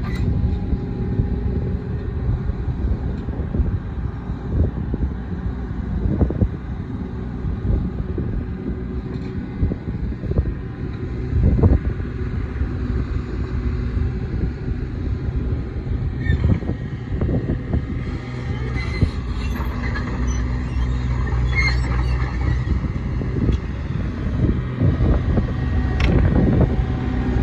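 Bobcat E27Z mini excavator's Kubota diesel engine running steadily, with occasional knocks and, past the middle, a run of high squeaks and clicks from the machine working.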